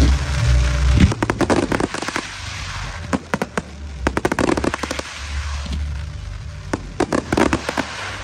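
Fireworks display going off in quick volleys: sharp bangs and dense crackle in clusters from comets and shells fired in fans from the ground.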